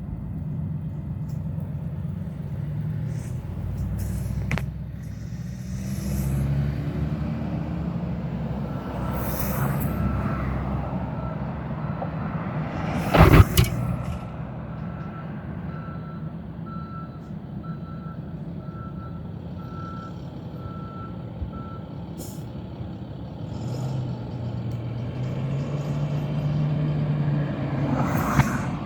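A truck engine running with a steady low rumble. From about eight seconds in, a reversing beeper sounds about once a second for some fourteen seconds. About a third of the way through there is one loud sharp noise.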